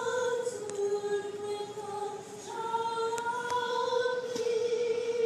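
A group of voices singing the school's alma mater together in slow, long-held notes, the melody stepping from one sustained tone to the next.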